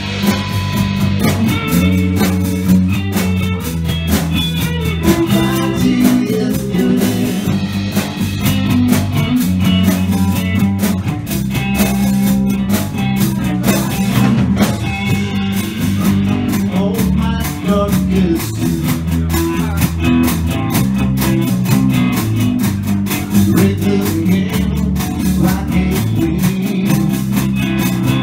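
Live electric blues band playing: electric guitar over bass guitar and a drum kit, continuous and loud.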